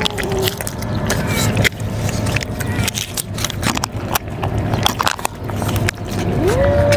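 Irregular clicks and rustles, with a cat's long drawn-out meow starting near the end, rising and then slowly falling in pitch; another meow trails off at the very start.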